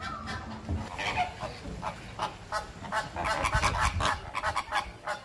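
Waterfowl calling: short calls repeated many times, coming quickest from about two seconds in to near the end.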